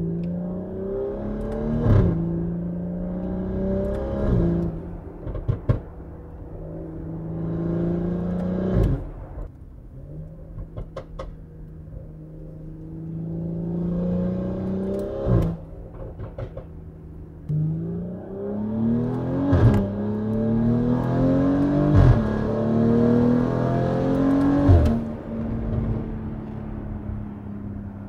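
BMW X3 M40i's turbocharged 3.0-litre inline-six, heard through a valved aftermarket exhaust with free-flow downpipes, accelerating hard through the gears. The revs climb, then drop at each upshift, and several of the shifts end in a sharp crack. There is a steadier stretch of lower revs in the middle.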